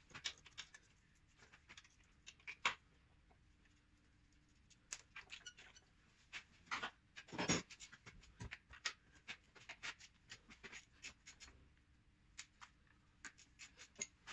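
Faint irregular clicks and scrapes of hand tools at work under a car, a ratchet clicking in short runs as a gearbox bolt is undone, with one louder knock about halfway through.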